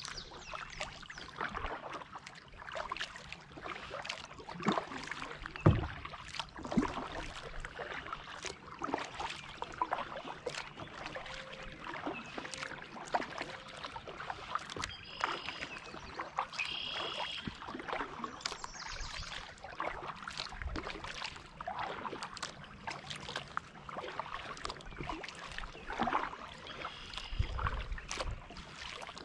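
Kayak paddle strokes: the blades dipping and pulling through calm water with irregular splashes and drips, and a dull knock about six seconds in.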